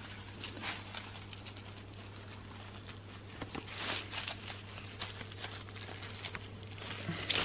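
Hands handling a potted adenium: scattered soft rustles and light taps, a little louder about four seconds in and near the end, over a steady low hum.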